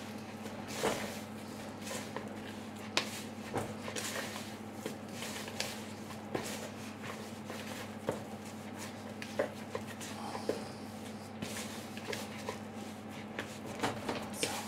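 Hands kneading and squeezing a crumbly broccoli and chickpea-flour dough in a bowl: soft, irregular rustles and small knocks against the bowl, over a steady low hum.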